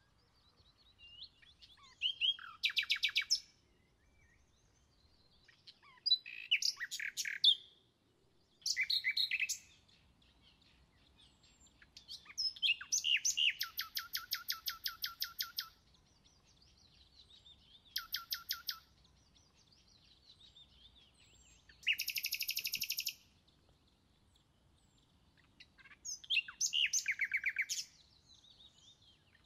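Songbirds singing: short phrases of fast trilled notes, high-pitched, coming every few seconds with pauses in between.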